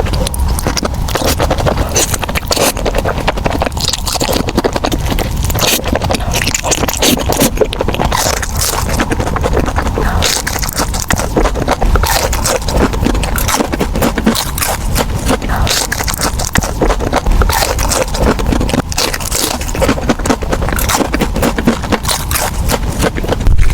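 Crunching and chewing of crispy fried chicken: a dense, irregular run of crisp crunches and crackles.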